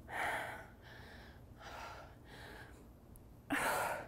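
A woman breathing hard from exertion during reps: three heavy, forceful breaths through the mouth, the last the loudest.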